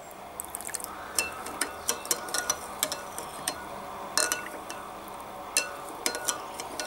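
Metal spoon stirring salt into water in a glass bowl, clinking and scraping against the glass at an irregular pace, several clinks a second, as the salt dissolves into brine.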